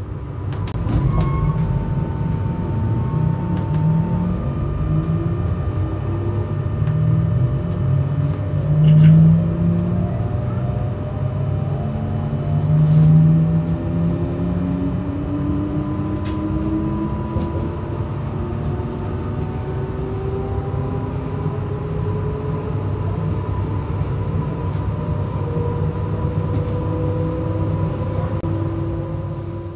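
Z 20500-series (Z2N) double-deck electric multiple unit under way: its traction motors whine in several tones that climb slowly in pitch as the train gathers speed, over a loud low running rumble.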